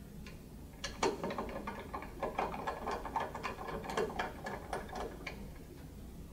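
Screwdriver turning a seizure screw into the cast aluminium amplifier housing base: a rapid, uneven run of small metallic clicks and ticks starting about a second in and lasting about four seconds.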